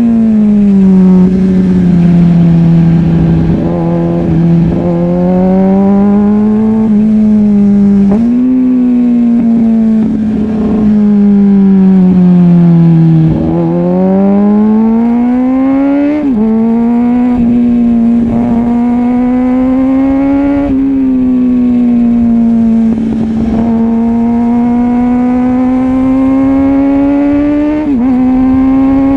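2005 Kawasaki ZX-6R 636's inline-four engine and exhaust while riding. The revs climb and fall again and again, and the pitch drops suddenly several times as it shifts gear.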